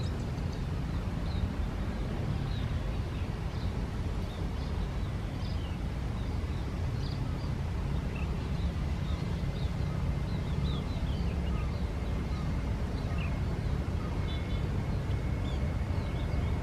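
Distant jet airliner on its takeoff roll: a steady low rumble, with a thin engine whine that comes in about halfway and strengthens toward the end. Small birds chirp repeatedly over it.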